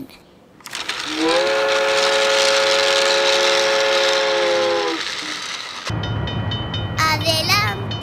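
Train passing a level crossing: a rushing rumble with one long, steady horn blast held for about three and a half seconds. Children's music with a beat comes in about six seconds in.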